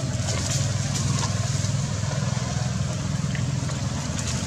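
A motor vehicle engine running steadily close by, a continuous low rumble.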